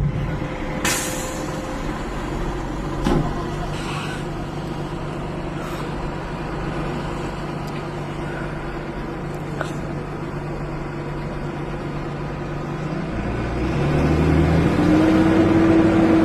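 A motor vehicle's engine running steadily, with a few faint clicks. Near the end it grows louder and a higher tone rises and holds, as the engine revs or a vehicle draws close.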